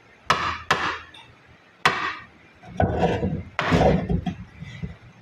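A wooden spatula and spoon knocking and scraping against a wok while tossing fried rice. There are a few separate sharp knocks in the first two seconds, then a longer, busier run of knocking and scraping near the middle.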